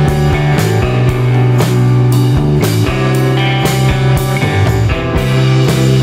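Background rock music with a steady beat, about two beats a second.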